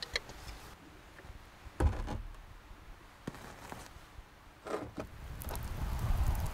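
A few scattered knocks and thumps, the loudest about two seconds in. Near the end a low rumbling noise with light crackles builds up.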